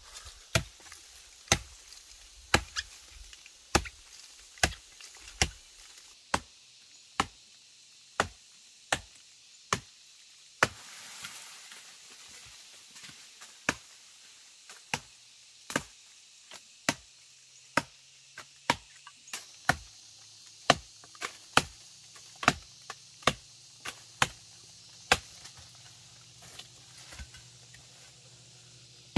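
Steady chopping, a blade striking wood or woody stems about once a second, with a short rustle about eleven seconds in.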